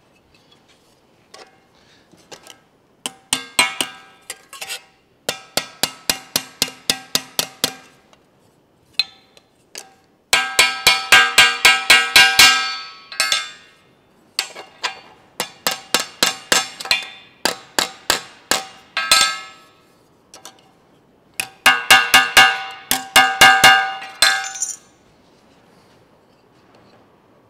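Hand hammer tapping a strip of sheet steel on a steel bench top in five quick runs of ringing metallic blows, about five or six a second. This is the hammer work on a freshly formed gutter section.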